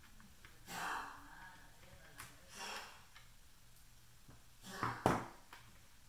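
Hand-tool and handling noises from the opened plastic housing of a pulse oximeter as the screws holding its metal battery cover are taken out and the cover removed: a few soft swishes and light clicks, with a sharper click about five seconds in.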